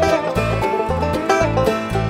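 Instrumental break in a country song: string instruments playing a melody over a steady bass beat, about two beats a second.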